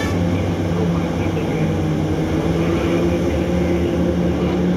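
Diesel engines of a Hitachi EX3600 mining excavator and a loaded haul truck running with a steady deep drone.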